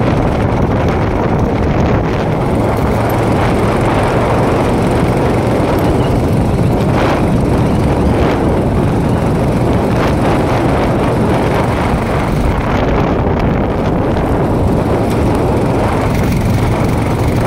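Royal Enfield Himalayan's single-cylinder engine running under way on a dirt road, mixed with steady wind and road noise, with a few brief knocks about seven to ten seconds in.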